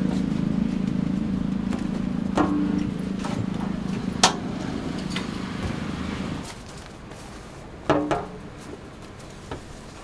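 An engine runs steadily with a low hum until it cuts off about two-thirds of the way through. Several sharp clinks and knocks of utensils on metal come over it, a few of them ringing briefly, the loudest about eight seconds in.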